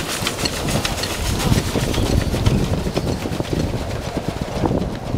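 A 1/8-scale live steam model of the Pennsylvania Railroad Q2 duplex locomotive running past close by: a steady rumble of wheels on the rails with steam hissing over it. The hiss dies away near the end as the tender rolls by.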